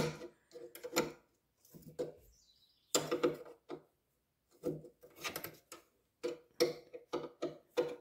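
A ratcheting wrench clicking in several short runs as it tightens the jam nut on the ATV's drive-chain adjuster rod, locking in the chain slack.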